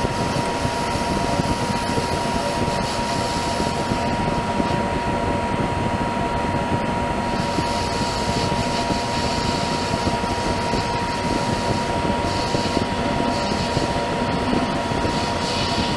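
Monarch 10EE lathe running steadily with a steady high whine, the chuck spinning while a single-point tool fed on the compound at 45 degrees takes light chamfer cuts on a metal part, the cutting hiss coming and going.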